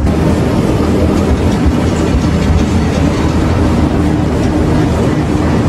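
Wooden two-axle passenger coach running on street tram track: a steady rumble of wheels on rail with light clattering from the wheels and car body.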